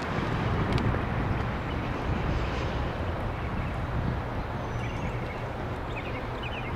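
Freight train cars rolling past on the rails: a steady rumble of wheels on track.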